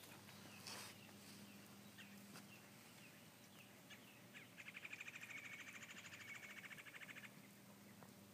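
Faint bird chirps, short falling notes, then from about halfway through a rapid, even trill lasting about three seconds.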